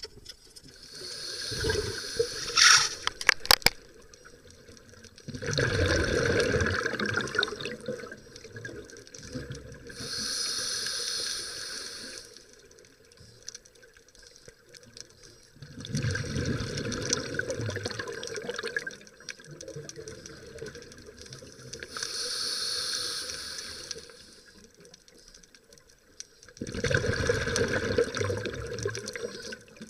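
Scuba diver breathing through a regulator underwater: about three breaths, each a hissing inhale through the demand valve followed by a longer bubbling exhale. A few sharp clicks come about three seconds in.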